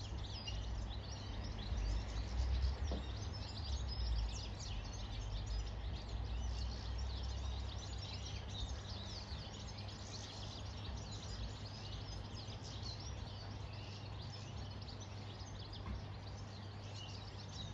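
Many birds calling at once, a dense stream of short high chirps over a steady low rumble.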